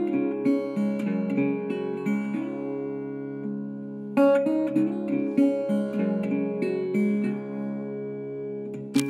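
Background acoustic guitar music, plucked notes and strums, with a louder new phrase starting about four seconds in.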